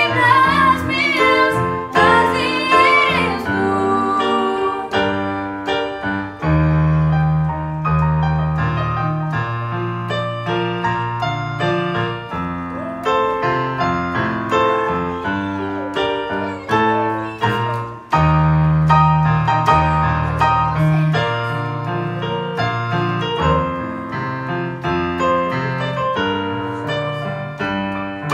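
Korg Pa300 arranger keyboard playing a piano-voiced instrumental passage with sustained low bass notes. A sung phrase ends about three seconds in.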